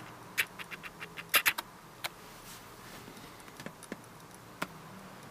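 Scattered clicks and taps from operating a computer's keys and pointer: a quick cluster of clicks in the first second and a half, then single clicks about two seconds in, near four seconds and about four and a half seconds in.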